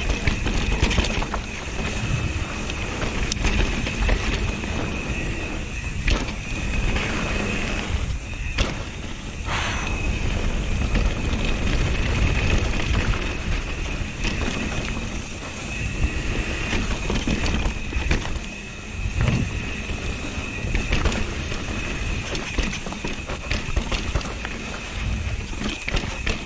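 Mountain bike ridden fast down a dirt trail: tyres rolling on dirt, wind rushing over the microphone, and knocks and rattles over bumps. A high, steady whine runs through most of it, dropping out briefly about eight to ten seconds in.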